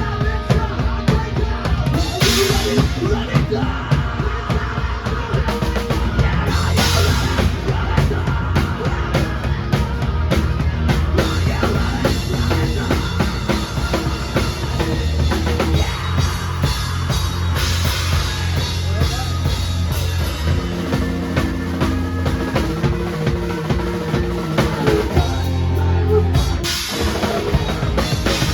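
Drum kit played over a backing track of the song, keeping a steady beat on kick and snare. Cymbal crashes land about every few seconds, four in all.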